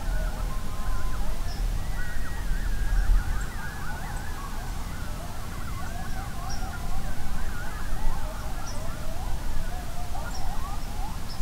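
A pack of coyotes yipping and howling together: many wavering, high-pitched voices overlapping continuously, over a low rumble.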